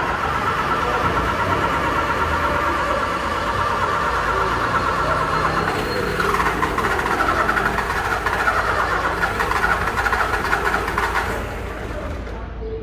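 Car's starter going 'tec tec' in a rapid run of clicks as the key is held to start, with the engine not catching: a starting-system fault. It weakens about eleven seconds in and cuts off near the end.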